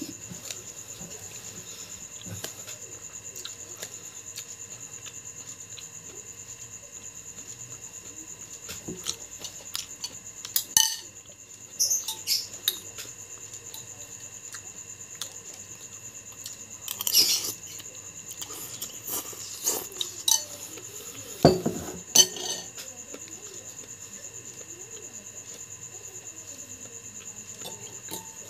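Metal spoon clinking and scraping against a bowl in scattered, irregular strikes while eating, a few of them louder.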